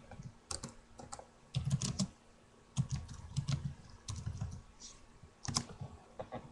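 Typing on a computer keyboard: runs of quick key clicks in several short bursts with brief pauses between them, the last keystrokes about five and a half seconds in.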